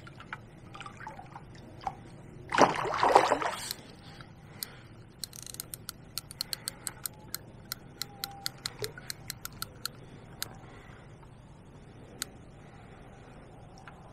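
A hooked zander splashing and thrashing at the surface for about a second, then a run of quick sharp clicks from the fishing reel while the fish is played in.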